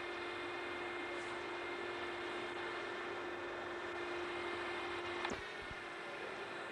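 Steady machine hum with hiss, over which a steady tone runs and then cuts off with a click about five seconds in.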